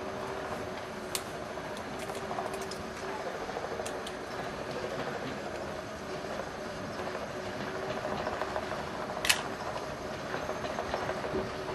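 Gresley V2 steam locomotive 'Green Arrow' approaching with its train: a steady running noise with two low steady tones. A few sharp clicks come through it, the loudest about nine seconds in.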